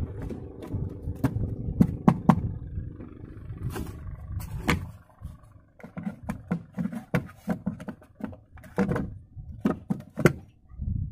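A low rumble that fades out about five seconds in, with scattered sharp clicks and knocks of a hand handling a plastic model boat's hull.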